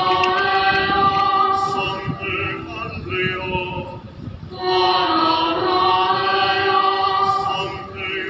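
Choir singing a slow hymn in long held notes, in two phrases with a short break about four seconds in.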